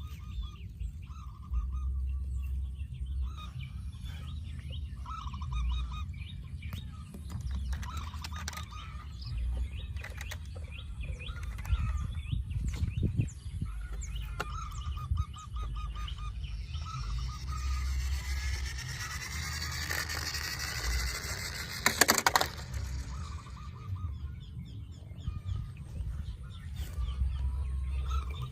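Fowl honking in short repeated calls, over a steady low rumble, with a brief burst of sharp clicks about three quarters of the way through.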